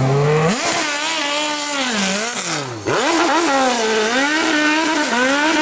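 ATV engine revving hard under load on a steep dirt hill climb, its pitch rising and falling several times and dipping sharply near three seconds before climbing again.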